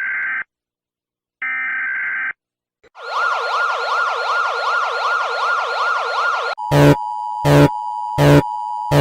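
Emergency alert alarm sequence. It opens with two steady electronic beeps separated by short silences, then a rapidly warbling siren tone sweeping up and down several times a second. About two-thirds of the way in it switches to a steady two-note alert tone punctuated by louder buzzing pulses roughly every 0.7 seconds.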